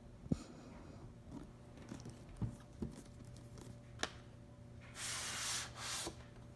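Paperboard packaging handled: a few light taps and knocks, then about five seconds in a white paper sleeve slides off a black cardboard box with a brief scraping hiss lasting under a second, and a short second scrape just after.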